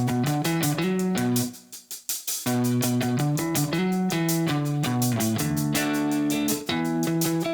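Background music led by guitar over a steady beat, with a short break about two seconds in.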